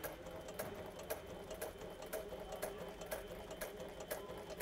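Sailrite Ultrafeed walking-foot sewing machine, driven by a Workhorse servo motor, stitching slowly through a coil zipper on clear vinyl. A steady motor hum runs under a click about twice a second, one for each stitch.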